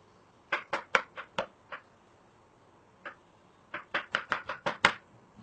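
Kitchen knife chopping peeled mango into pieces: a run of about six quick knocks, a single one, then a faster run of about eight.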